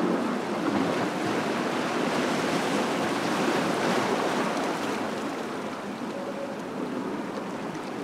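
Small ocean waves washing in over a rocky shore and swirling between the rocks, a steady rush of surf that eases a little near the end.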